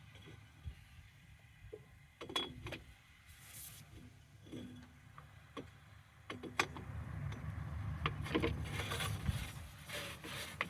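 Scattered sharp metal clinks and knocks from hand work on a sawmill driveline, over a low rumble that grows louder about halfway through.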